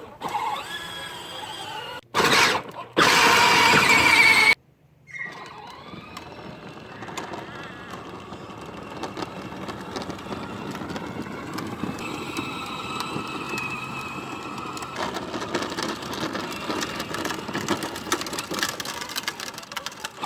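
Peg Perego Polaris Slingshot 12V battery ride-on toy car driving, its electric motor running with the plastic wheels rattling and clicking over the ground. Two loud high squeals come about two and three seconds in.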